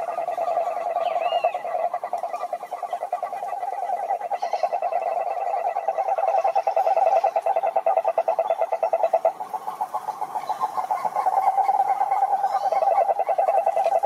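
Cane toad (sapo-cururu) giving its long, steady trill, a fast run of even pulses that sounds like a low purr. The trill breaks briefly about nine seconds in and carries on.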